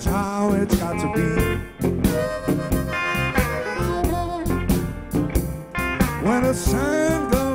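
Live electric blues band playing: a blues harmonica played into a microphone, bending notes over keyboard, drums, bass and electric guitar.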